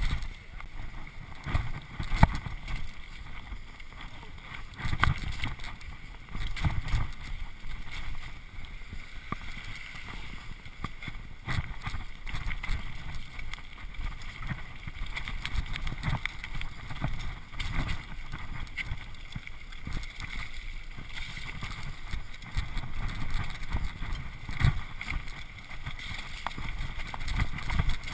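Mountain bike riding fast down a wet, rocky forest trail, heard from a chest-mounted action camera: an uneven rumble of tyres over wet gravel and stones with splashes through puddles, wind on the microphone, and frequent clatters and knocks from the bike.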